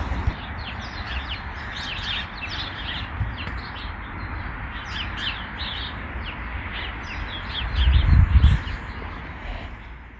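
Small songbirds chirping and twittering, many short high chirps in quick succession, over a low rumble that swells loudly about eight seconds in. The sound fades out near the end.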